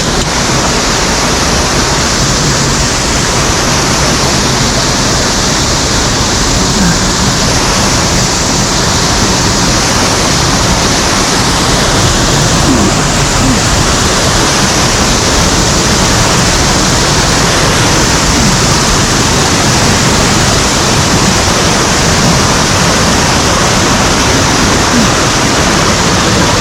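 Loud, steady rush of a mountain stream's water cascading over rocks.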